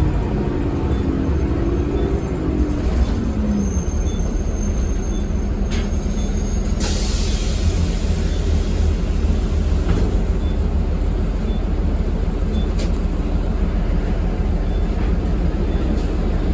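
Cabin sound of a 2013 Eldorado National Axess transit bus under way: a steady low engine and road rumble. A short burst of hissing air comes about seven seconds in, typical of the bus's air brake system.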